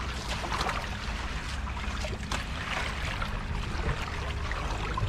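Stream water running and splashing, with scattered small splashes over a steady low rumble.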